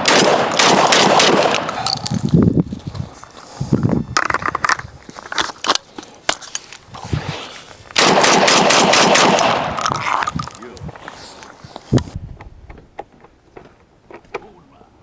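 12-gauge shotgun fired in rapid strings of shots as its magazine is emptied, in three loud bursts with pauses between. Only faint scattered clicks remain near the end.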